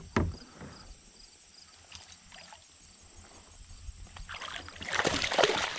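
Splashing and knocking of water and a fish against a kayak, quiet at first and building over the last second and a half, over a faint steady insect buzz.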